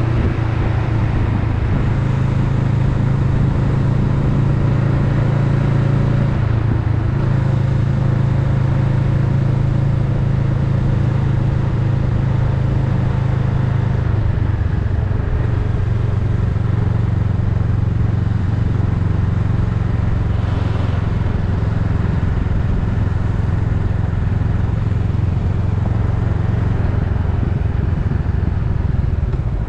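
Honda Rebel 500's parallel-twin engine running steadily while riding. The engine note drops in pitch about fourteen seconds in, then holds steady.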